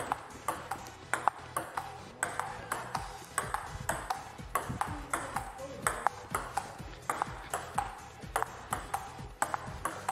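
Table tennis ball clicking rapidly off paddles and table in quick, irregular rallies, over background music.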